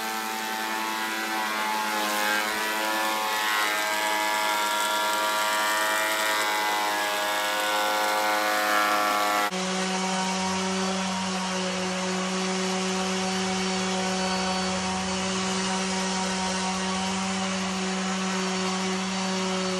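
Electric benchtop planer running, its motor whine wavering slightly in pitch as a softwood board feeds through the cutters. About halfway through, this gives way abruptly to the steady, even whine of an electric random orbital sander on timber.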